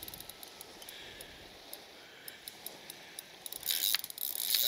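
Fishing reel being wound as a hooked fish is played in: faint rapid ticking from the reel, then a louder scraping hiss near the end.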